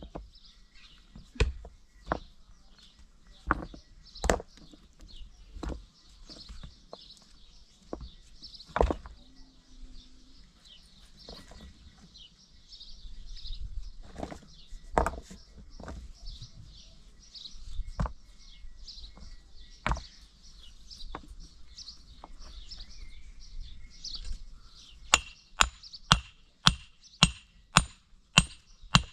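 Hand-tool strikes at building work: scattered knocks and thuds every second or two, then, near the end, a quick steady run of sharp blows, about two or three a second. Birds chirp in the background throughout.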